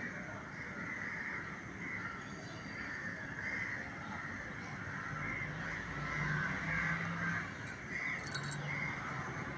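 Many birds calling over one another in an early-morning chorus: a dense run of short, harsh calls that never stops. A faint low hum joins about halfway through.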